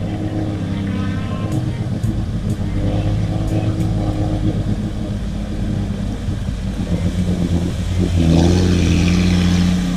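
Lifted Jeep Cherokee's engine running under load as it wades through a deep, weed-covered pond. About eight seconds in it gets louder, with a rush of splashing water and mud as the wheels churn up the bank.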